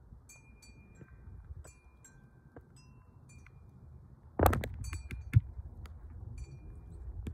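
Light tinkling of chimes: scattered short, high ringing notes. A loud thump sounds about four and a half seconds in, and a sharp click about a second later.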